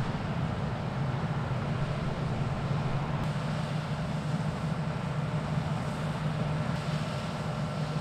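John Deere T6 700 combine harvester running steadily while cutting barley: a constant low engine drone under an even whir of the header and threshing machinery.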